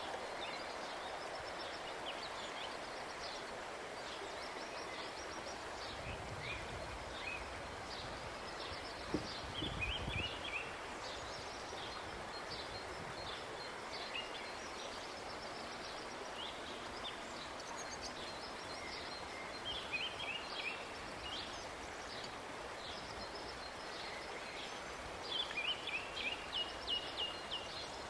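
Outdoor ambience with small birds chirping on and off, including a run of quick repeated calls near the end, and a soft low thud about nine seconds in.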